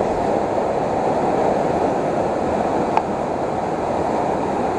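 Anchukuzhi waterfall and river in flood after heavy rain, a steady rush of muddy floodwater over the rocks. A single small click about three seconds in.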